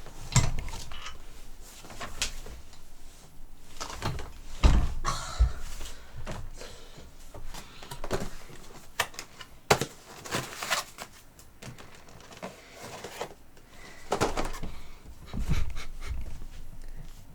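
Irregular knocks, clicks and rustling from gaming chair parts being handled and fitted during assembly, with a few heavier thumps about a third of the way in and near the end.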